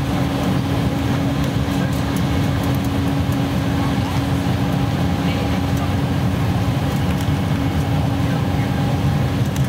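Steady cabin noise inside an Embraer E-190 climbing just after takeoff: the engine noise of its two GE CF34-10E turbofans and rushing air, with a steady low hum.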